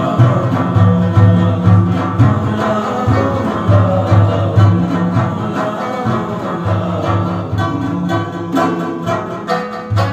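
Afghan rubab playing a plucked melody over the steady beat of a large daf frame drum, in a devotional Sufi song.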